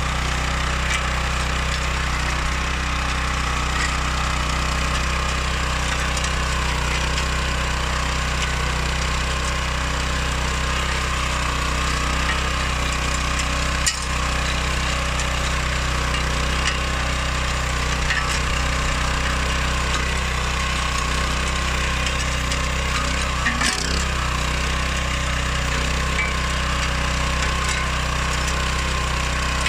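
Oleo-Mac MH 150 RK motor hoe's engine running steadily, a low hum with a harsh noisy clatter over it. Two short knocks, one about halfway through and one later.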